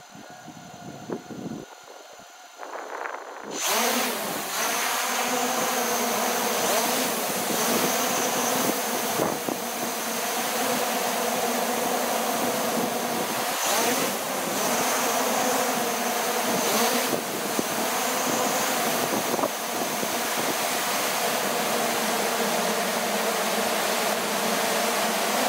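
A motor running, with a steady hum; about three and a half seconds in, a loud rushing noise comes in suddenly over it and holds steady.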